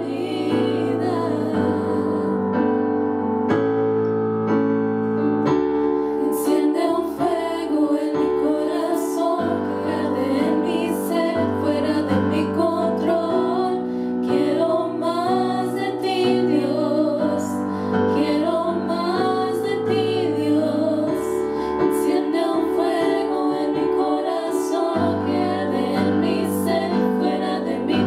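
Three women singing a worship song together into handheld microphones over keyboard accompaniment, whose low chords are held and change every couple of seconds.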